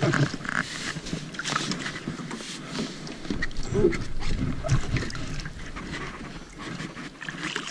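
A hooked largemouth bass thrashing and splashing at the surface beside a small boat, with a sharp splash right at the start, followed by knocks and scuffs against the boat's hull and deck as the fish is grabbed and lifted aboard.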